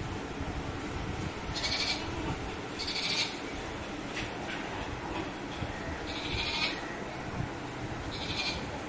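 Goats bleating four times in short, high-pitched calls, spread across several seconds, over a steady background hum.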